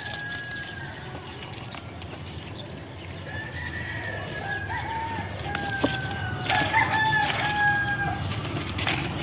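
A rooster crowing: a call at the start, then a long drawn-out crow from about three to eight seconds in. Scattered clicks and rustles of leaves being handled run alongside.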